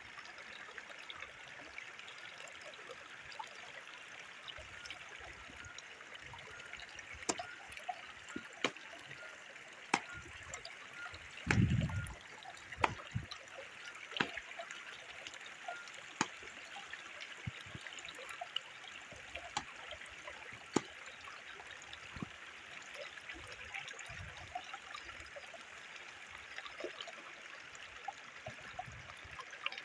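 Shallow stream trickling over rock, a steady wash of water. Scattered light clicks and knocks of sticks being handled and tied run through it, with one louder low thump near the middle.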